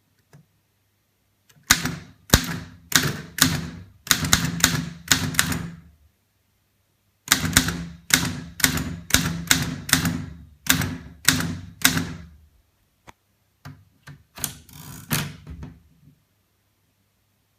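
Keys of a 1921 Underwood Standard No. 5 typewriter being struck one by one, each type bar hitting the platen with a sharp clack. The typing comes in two runs of about two strikes a second with a short pause between them, then a few softer clicks and a brief rattle near the end.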